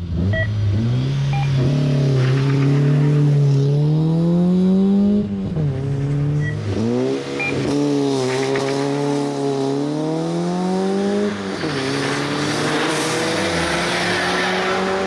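A Ford Fiesta race car's four-cylinder engine revving hard and accelerating, its pitch climbing and then dropping sharply at each upshift, about twice.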